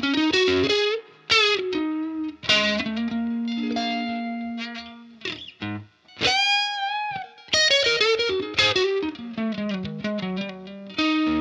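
Fender Stratocaster electric guitar played through a Universal Audio OX box with its 1x12 Tweed speaker-cabinet and mic simulation. It plays a single-note lead: fast runs and held notes, with a bent note shaken in vibrato about six seconds in.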